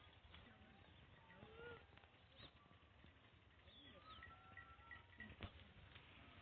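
Faint bird chirps and calls over a quiet background, including a quick run of short, evenly spaced chirps about four and a half seconds in, with a faint click shortly after.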